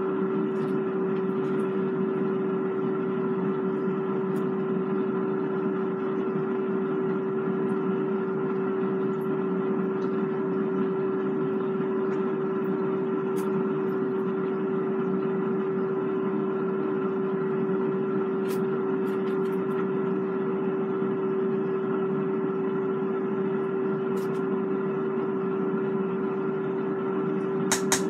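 Cosori 5.8-quart air fryer running at 400 degrees: a steady fan hum with one strong held tone. A few faint clicks of a serving spoon against the rice cooker pot.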